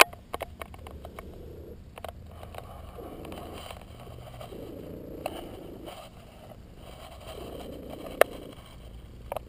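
Tabby cat purring close up, swelling and fading with each breath about every one and a half to two seconds. A few clicks at the start and one sharp click about eight seconds in.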